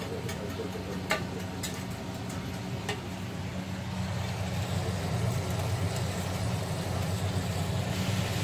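A spoon stirring in a small stainless-steel saucepan, clicking against the metal about a second in and again about three seconds in, over a steady low hum and a hiss that grows louder from about halfway.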